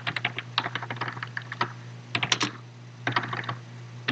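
Typing on a computer keyboard: quick runs of keystrokes, with a short pause a little after halfway. A steady low hum runs underneath.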